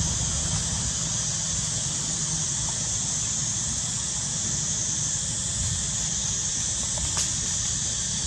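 A steady, high-pitched drone of forest insects, even and unbroken, over a low rumble.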